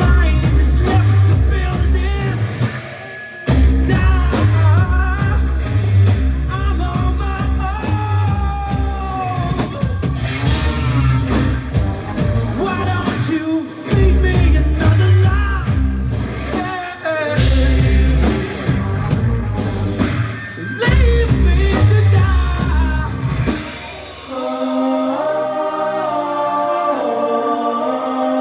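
Rock band playing with drum kit, guitar and singing. About 24 seconds in, the drums drop out, leaving steady held chords.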